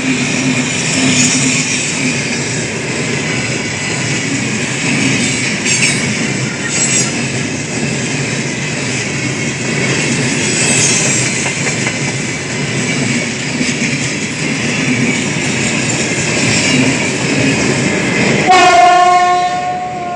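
Freight train of gondola cars rolling past, steady wheel-on-rail noise with clickety-clack. Near the end an electric locomotive's horn sounds loudly, one held blast.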